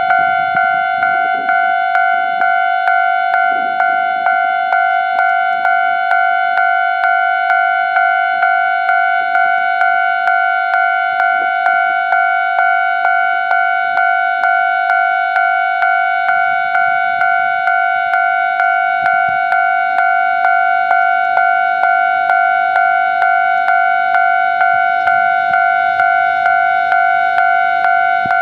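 Japanese railway level-crossing alarm ringing its electronic bell: a bright, pitched ding struck over and over at an even pace of about three strokes every two seconds, warning of an approaching train.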